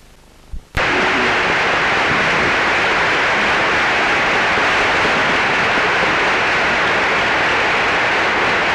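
Large conference audience applauding: a loud, steady mass of clapping that starts abruptly about a second in, just after a brief click.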